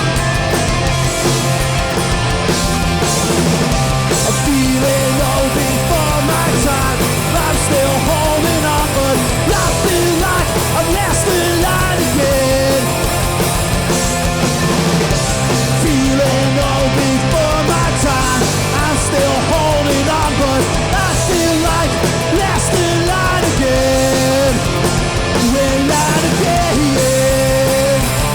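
Hardcore punk band playing live at full volume: distorted guitars, bass and drums. From about four seconds in, a bending melodic line rises above the band.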